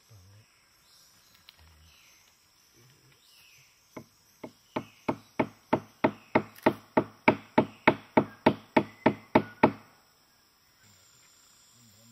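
A fast, even run of about twenty chopping blows on wood, some four a second, starting about four seconds in, growing louder over the first few and then stopping: a shield being carved from wet root wood with a traditional hand tool. Insects hum steadily behind.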